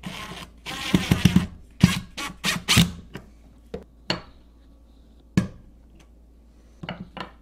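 Screwdriver turning a receptacle's mounting screw into the electrical box: a scratchy, rasping stretch for about a second and a half, then a string of sharp clicks and taps of tools on the receptacle's metal strap, spread out toward the end.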